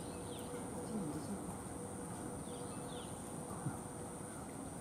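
Outdoor ambience: a constant high whine under faint bird chirps, two short pairs of falling notes, with a faint distant voice about a second in and a single soft knock late on.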